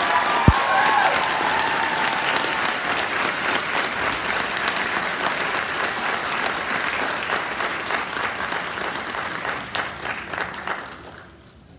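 Audience applauding, with a few high cheers at the start and one sharp thump about half a second in. The clapping fades out near the end.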